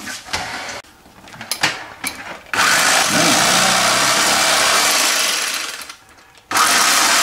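Electric carving knife running, its reciprocating blades sawing through the crisp crust of a freshly baked boule. A few knocks of handling come first, then the knife starts about two and a half seconds in, stops briefly near six seconds, and starts again.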